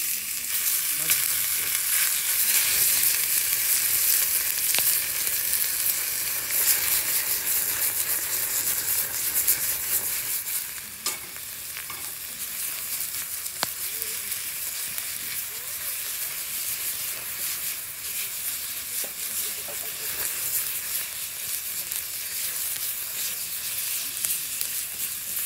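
Sliced beef sizzling in hot oil in a cast-iron skillet as it is stirred with chopsticks. The sizzle is loud for the first ten seconds or so, then settles to a lower, steady frying hiss, with a few sharp clicks.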